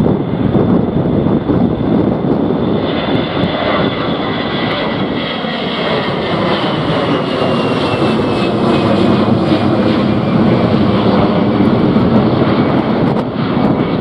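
Airbus A320-family airliner's twin turbofan engines at take-off thrust as it lifts off and climbs away: a steady, loud roar with a thin fan whine that slowly falls in pitch as the jet passes and recedes.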